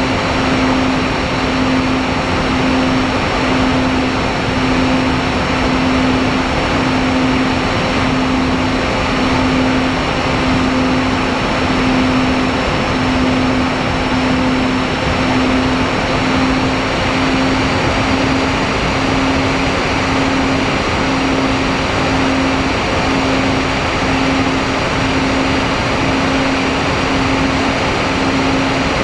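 Electric motors and propellers of an MFD 1800 twin FPV plane running steadily in cruise, heard through the onboard camera with a heavy rush of air over the microphone. The motor hum swells and fades about once a second.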